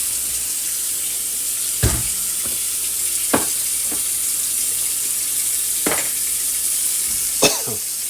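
Kitchen tap running steadily into a sink, with four short knocks spread through it.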